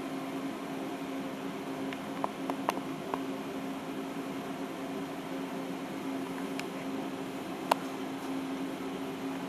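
Multicam MT22 CNC router sitting powered up with its drives just enabled, giving a steady electrical hum. A few light clicks come about two to three seconds in, and one sharp click near the end.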